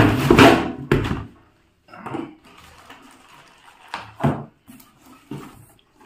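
Cardboard carton scraping and rustling as a plastic vacuum cleaner tank is lifted out of its box in the first second or so, followed by a few scattered knocks and rustles as it is set down and the box is handled.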